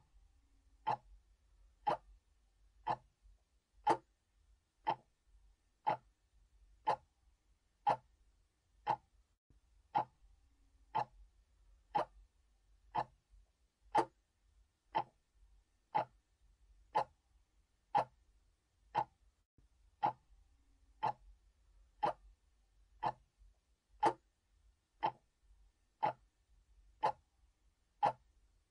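Mechanical clock ticking steadily, about one tick a second.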